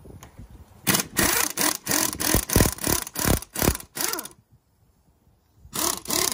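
Pneumatic impact wrench hammering in a quick string of about ten short bursts, then one more burst after a pause near the end, loosening the rocker arm shaft bolts on a tractor cylinder head.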